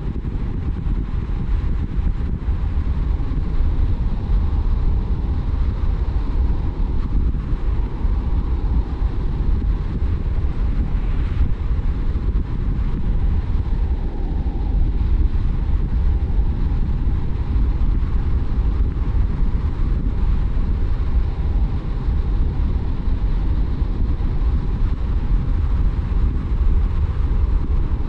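A car driving steadily on the road: a constant low rumble of road and engine noise with no breaks or distinct events.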